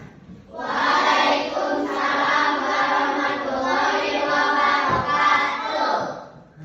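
A group of voices singing or chanting together in unison for about six seconds, then trailing off.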